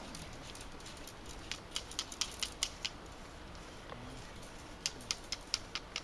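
Flint struck against a marcassite nodule to throw sparks for fire-lighting: two quick runs of sharp clicking strikes.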